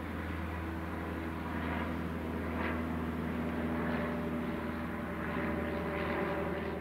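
A steady low engine drone with a hum underneath and soft swells of hiss rising and falling about once a second.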